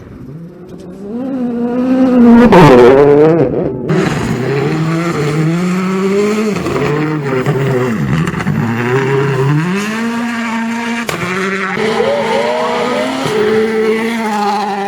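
Rally car approaching fast and passing close about two and a half seconds in, its engine note dropping in pitch as it goes by. After that the engine stays loud, revving up and down through several gear changes.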